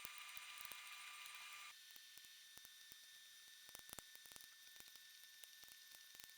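Near silence: a steady faint hiss and hum, dropping slightly about two seconds in, with scattered faint clicks at irregular intervals.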